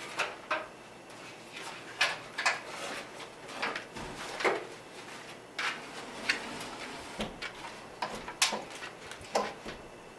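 A series of irregular, sharp knocks and clicks, about one or two a second.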